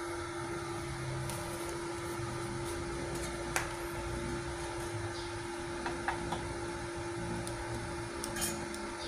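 Multipro inverter welding machine switched on and idling with a steady electrical hum, and a few sharp clicks a few seconds apart as the MIG torch is handled at the workpiece. No welding arc is running.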